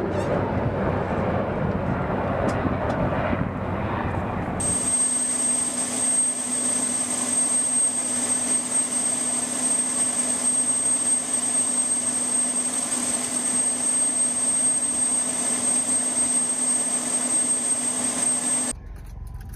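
Loud rumbling noise for the first few seconds, then an aircraft turbine engine running with a steady high whine over a lower steady hum, which stops abruptly near the end.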